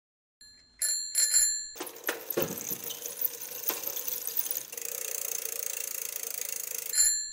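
Bicycle bell rung three times in quick succession about a second in, then a long whoosh with a low thud and scattered clicks, and the bell ringing again near the end: a logo intro sound effect.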